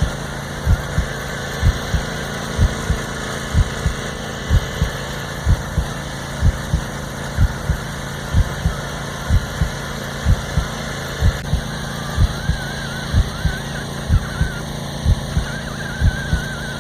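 John Deere E180 garden tractor's 25-horsepower engine running steadily, with regular low thuds coming in pairs about once a second. A warbling tone joins in about three-quarters of the way through.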